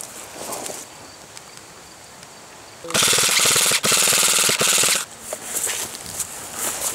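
Rustling of brush and pine branches as a player moves through the scrub. About three seconds in comes a loud run of rapid full-auto fire from an M4-style airsoft rifle: two bursts with a brief break, about two seconds in all.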